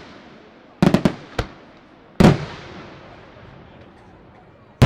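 Aerial firework shells bursting: a quick run of three or four bangs about a second in, a loud boom a little past two seconds with a long fading rumble, and one more sharp bang at the very end.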